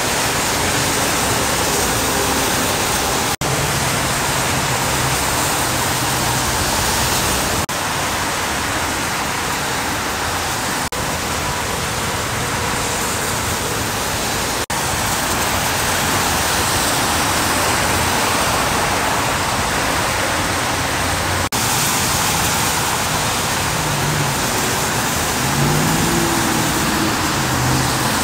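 Traffic on a wet freeway: a steady hiss of tyres on rain-soaked pavement and rain, with the low hum of passing truck engines, an engine note rising and falling near the end. Several brief dropouts break it where clips are cut together.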